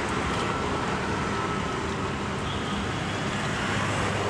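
Steady road traffic noise from a street, an even rush of passing vehicles with no distinct events standing out.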